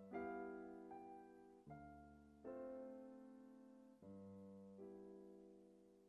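Quiet solo piano music: slow notes and chords struck about once a second, each left to ring and fade.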